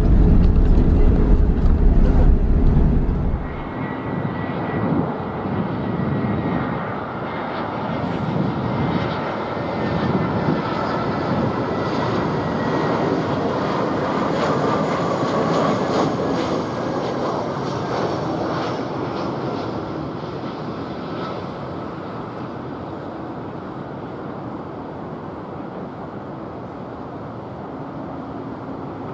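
Low rumble of an airliner rolling on the ground, heard from inside the cabin, which cuts off after about three seconds. It gives way to an Airbus A320's jet engines on final approach, a rush with a high whine that swells as the plane passes and then fades as it descends to touchdown.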